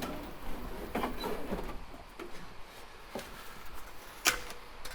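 Light knocks and rattles of loose car parts being handled and moved, with one sharp knock about four seconds in.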